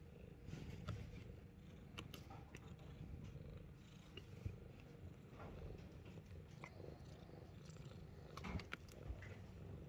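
Himalayan Persian cat purring faintly, a low rumble, with scattered small clicks and scratches of a metal-toothed comb being drawn through its fur.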